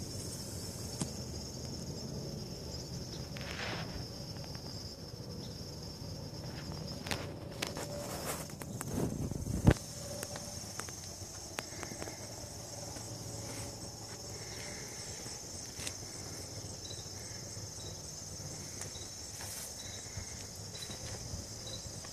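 Insects trilling steadily and high-pitched outdoors, with light footsteps and rustling as someone walks around a parked golf cart. One sharp knock stands out about ten seconds in.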